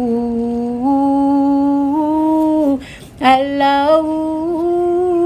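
Devotional Urdu nasheed: a woman's voice singing 'Allah' in long held notes that step slowly upward, two drawn-out phrases with a short breath between them about three seconds in.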